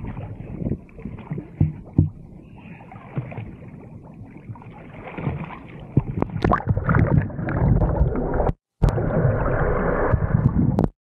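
Water splashing and gurgling around a small boat, with scattered knocks. The sound gets busier about two-thirds of the way through and cuts out for a moment soon after.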